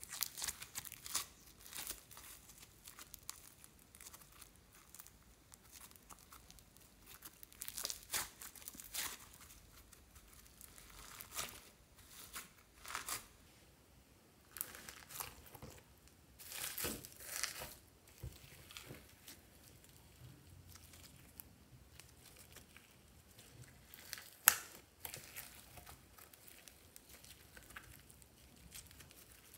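Hands squishing, stretching and pressing slime in a glass bowl, making irregular sticky crackles and pops. One sharp, louder pop comes late on.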